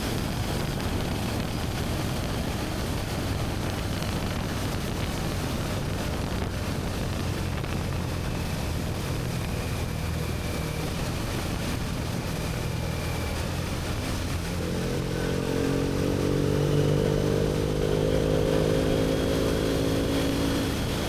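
BMW R1250GS Adventure's boxer twin running through an Akrapovic slip-on exhaust while riding, over a steady rush of road and wind noise. About two-thirds of the way through the engine note grows louder and fuller.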